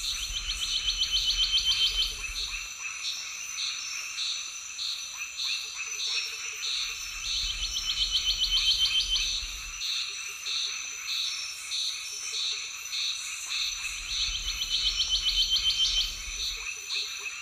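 Night animal chorus: a pulsed call that swells and speeds up for about two seconds, repeating three times about seven seconds apart, with softer pulsing between, over a steady high-pitched insect drone.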